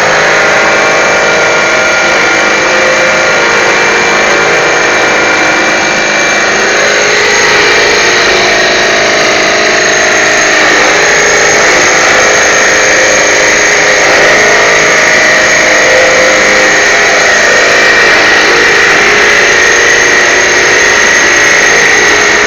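Suction vacuum running loudly with a steady whine, together with a pillar drill at work.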